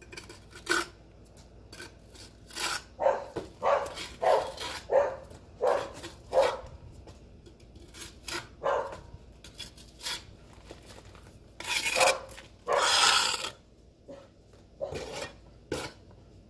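A metal trowel scraping and tooling wet mortar along the joints of concrete block, in short irregular rasping strokes, with two longer, louder scrapes about twelve seconds in.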